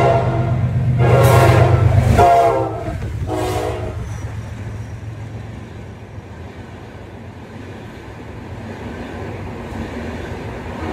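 Diesel locomotive passing close by at speed, sounding its horn in three loud blasts in the first four seconds over the heavy rumble of its engine. The engine noise drops away about two seconds in, leaving the steady rolling rumble of passenger coaches running past.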